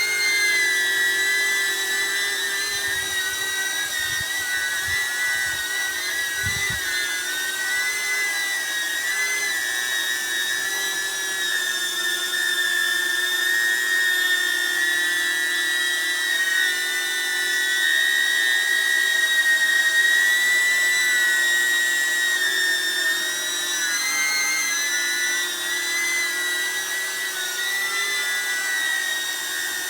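DJI Neo mini drone fitted with GEMFAN GEM-D51 aftermarket propellers, its motors and props giving a steady high-pitched whine. The pitch wavers slightly as the drone holds its position and dips briefly about three-quarters of the way through. A few low bumps come in the first several seconds.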